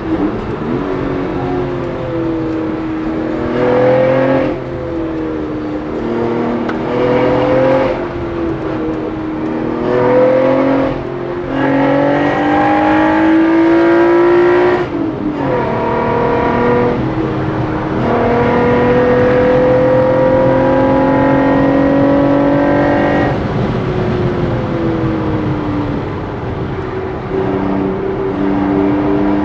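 Lotus Evora's 3.5-litre V6, with an aftermarket PbRacing exhaust and carbon-fibre cold-air intake, heard from inside the cabin while accelerating hard. The engine note rises in pitch over several pulls and drops between them, with one long climb past the middle. Toward the end it eases into a lower, steadier note.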